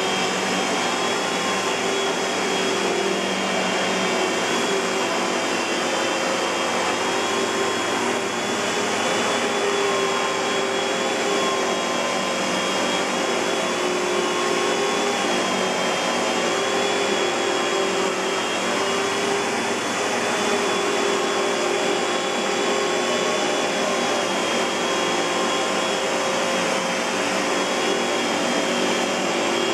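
Kenmore Progressive 116.21514012 canister vacuum with a SIP Cinderson blower motor running steadily: a constant rush of air with a steady whine over it.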